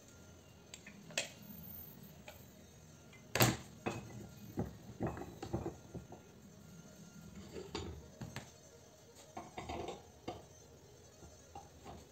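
Metal clinks and knocks as a small metal part from an iron is handled and clamped in a steel bench vise: a string of separate impacts, the sharpest about three and a half seconds in.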